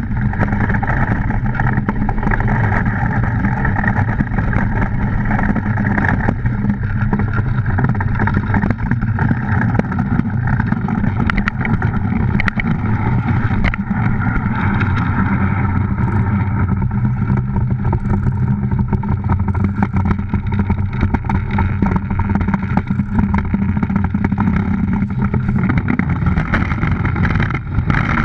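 DN iceboat sailing at speed: its runners rumble and scrape steadily over the ice, with a constant low hum through the wooden hull and many small ticks from the ice surface.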